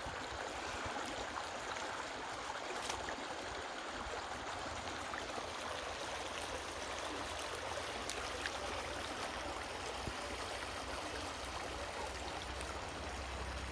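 Shallow water flowing over stones, a steady rushing noise.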